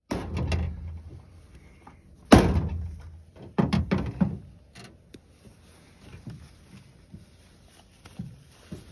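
Hatchet chopping through a sandhill crane's legs into a metal pickup tailgate. There is one loud chop about two seconds in, a quick run of about four knocks a second later, and a few softer knocks after that.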